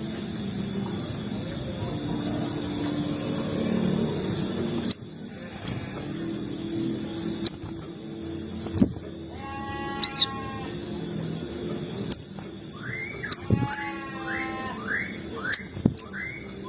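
Crimson sunbird (sogon) calls: sharp, very high chirps repeated in quick runs in the second half, with harsher squawking calls about ten seconds in and again a few seconds later. Before that there is a steady low background hum.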